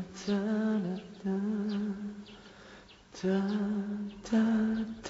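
A voice humming a slow, wavering tune in about four short held phrases with brief pauses between them.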